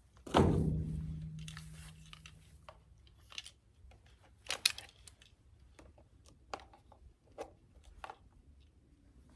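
A portable jump starter being unpacked by hand: a loud thump about half a second in that rings briefly, then rustling, crinkling and small clicks of the packaging being handled.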